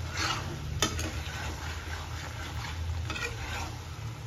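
Mutton curry being stirred and turned in a kadhai with steel tongs: metal scraping through the thick onion masala over a faint frying sizzle, with one sharp click of the tongs against the pan just under a second in.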